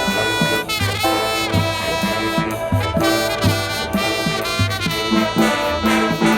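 Marching band playing: massed brass horns sounding sustained chords over a steady beat of drum hits.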